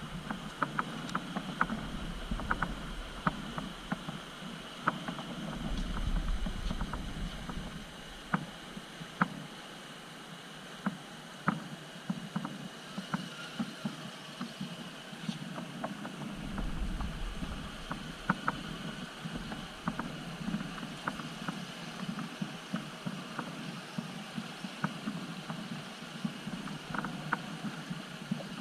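RC scale rock crawler driving over rocks: a steady drivetrain hum broken by frequent small clicks and knocks from tyres and chassis against stone. Wind buffets the microphone now and then.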